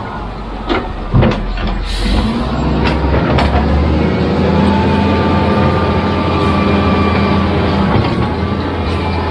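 Heavy diesel machinery running steadily, with a deep engine drone and several sharp metallic knocks in the first few seconds.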